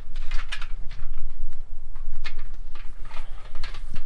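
Aluminum frame and mesh top of a tire-mounted camp table clinking and knocking as it is handled and hooked onto a truck tire, a few separate sharp knocks over a steady low rumble.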